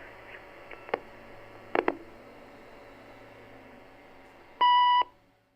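Telephone answering-machine recording: faint line hiss and hum with a few soft clicks, then one loud electronic beep lasting about half a second near the end. The recording then cuts off.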